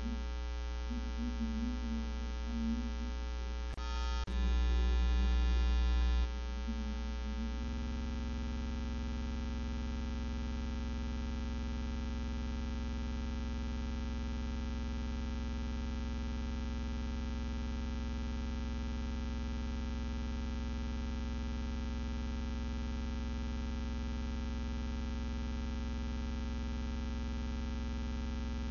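Steady electrical hum and buzz, such as a microphone picks up from mains, with two clicks about four seconds in followed by a couple of seconds of louder hum.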